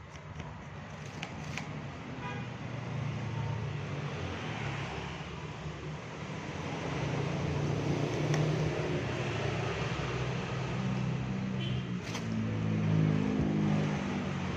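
Motor vehicle engine running nearby, a low rumble that grows louder toward the middle and peaks again near the end, like passing road traffic.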